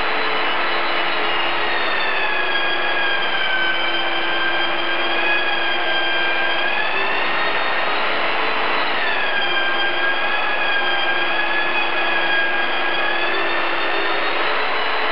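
Long-handled drywall sander running against a plaster ceiling, with a dust extractor drawing air through its hose: a steady rushing noise with a high whine that dips and rises in pitch now and then.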